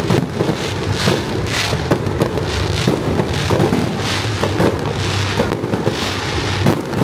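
Fireworks display: a dense, unbroken run of bangs and crackles, several a second.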